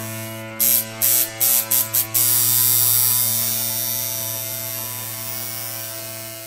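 Electrical hum sound effect: a steady low buzz with overtones, broken about half a second in by a stuttering run of loud static bursts, then a long static hiss that slowly fades out.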